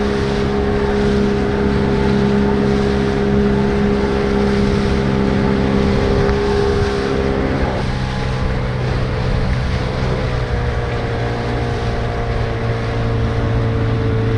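Outboard motor running at speed, driving a small boat through choppy water, with wind buffeting the microphone. The engine note shifts lower about eight seconds in.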